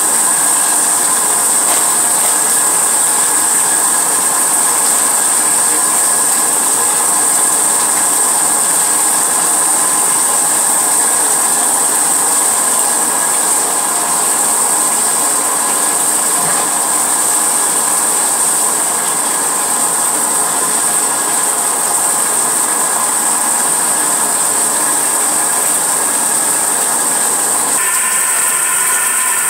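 Handheld hair dryer running steadily close to the microphone: a loud, even rushing hiss. Its tone shifts slightly near the end.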